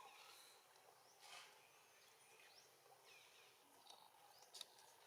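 Near silence: a faint outdoor background with a few short, high chirping animal calls and a couple of brief clicks.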